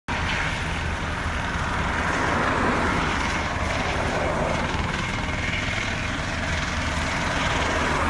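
Light helicopter's rotor and turbine engine running steadily and loudly as it lifts off into a low hover.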